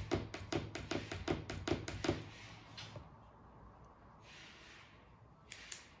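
The small tactile learning button on a KR3001 RF relay receiver module is clicked six times in quick succession, about two to three presses a second, to set the module's pairing mode. A soft rustle follows, and two more sharp clicks come near the end.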